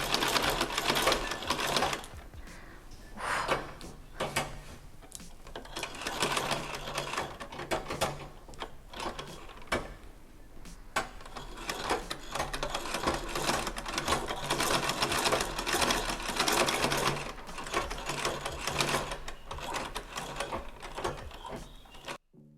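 Vintage Singer treadle sewing machine, said to be a 128K, running under foot-pedalling at an uneven pace, its needle and shuttle mechanism clattering while the bobbin winder fills the long bobbin; the stitching is not disengaged, so the whole machine sews as the bobbin winds. It stops suddenly near the end.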